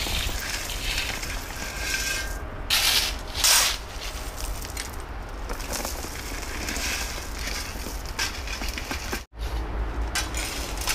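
Rustling and crunching of material being handled, with two louder crunches about three seconds in.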